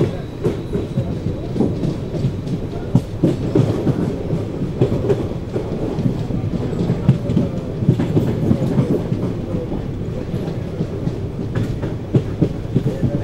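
Freight train of BTPGLN tank wagons rolling through, its wheels clacking over rail joints in a steady run of irregular knocks over a continuous low rumble.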